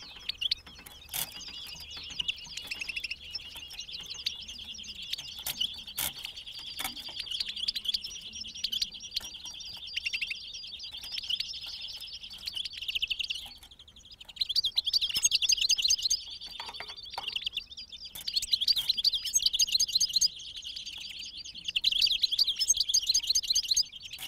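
Caged European goldfinch decoy singing: a long run of fast, liquid twittering, growing louder with rapid trilled phrases in the second half.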